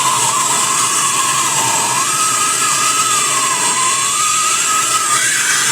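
Gas torch (maçarico) flame burning steadily with a loud hiss and a whistling tone that wavers in pitch, heating the washing machine's transmission hub to free it from the puller.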